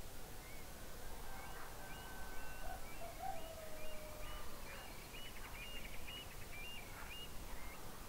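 Rural dawn ambience with several birds calling: quick, stepped high chirps through the middle and a long, slowly falling lower call about three seconds in, over a steady low background hum of open air.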